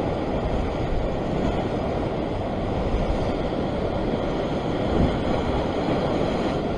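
Rough sea surging and breaking over the rock ledge in a steady rush of white water, with wind on the microphone.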